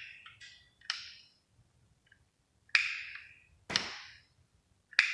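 Four sharp clicks of buttons being pressed on a garage door opener control, irregularly spaced, each with a short ringing tail. No opener motor starts running.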